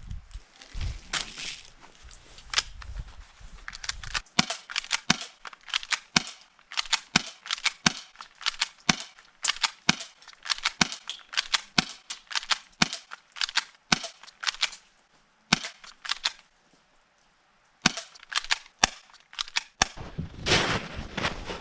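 Crunching footsteps on crusted, icy snow: a steady run of sharp steps, about two to three a second, stopping briefly near the end before starting again.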